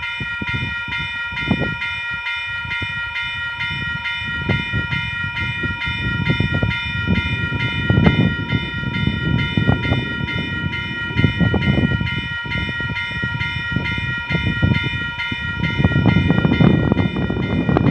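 Level crossing warning bells ringing in a fast, even rhythm, with a low rumble underneath that grows louder near the end.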